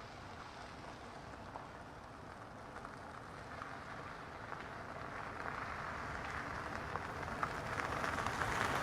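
Car tyres crunching over gravel, a dense crackle of small stones that grows steadily louder as the car approaches.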